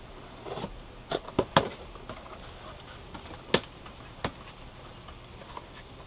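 A cardboard box being opened by hand: a scrape, then a quick run of sharp cracks and taps as the flaps and tape give, with the loudest single crack about three and a half seconds in and a softer one just after.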